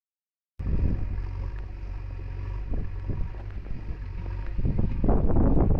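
Wind buffeting the microphone: an uneven low rumble that begins after a moment of silence and gusts stronger about five seconds in.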